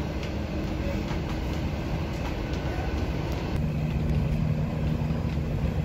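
Dortmund Stadtbahn light-rail car running along the track, heard from inside the car: a steady rolling rumble with faint ticks. A low steady hum comes in about three and a half seconds in.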